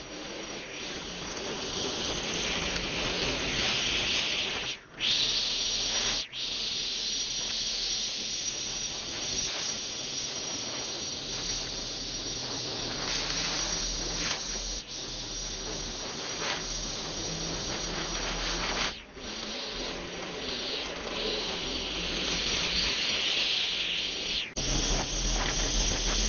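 String trimmer running as its line cuts overgrown grass and clover: a steady high hiss, broken by a few very short gaps.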